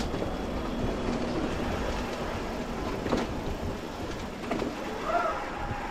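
Mountain bike rolling over rough ground: a steady rumble with a few sharp knocks and rattles.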